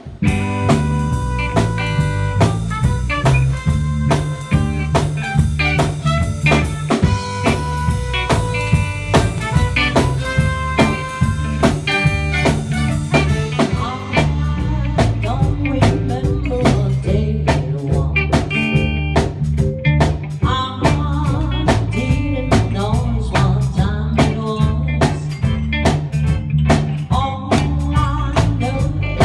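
Live band playing an upbeat song: drum kit, electric guitars and keyboard with a horn, and a woman singing lead into a microphone, amplified through the room's speakers.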